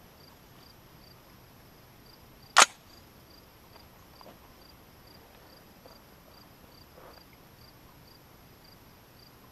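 A single gunshot about two and a half seconds in, over crickets chirping steadily, about two chirps a second.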